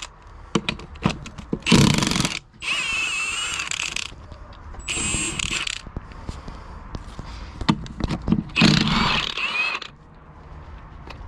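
Impact wrench running in four short bursts of a second or so, undoing a tractor's wheel nuts, with knocks and clicks of metal between the bursts.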